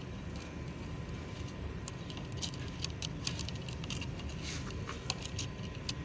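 Metal tongs clinking and clicking against the rim and sides of a glass jar of liquid, a run of sharp light clicks in the middle, over steady low background noise.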